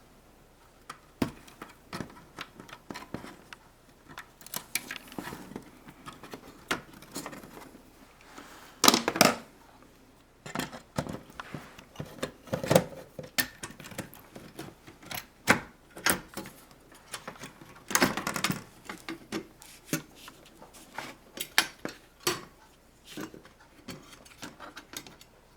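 Hands working on the inside of an LCD TV, unfastening and lifting out parts of its main board assembly: irregular small clicks, taps and rattles of plastic and metal, with a few louder knocks spread through.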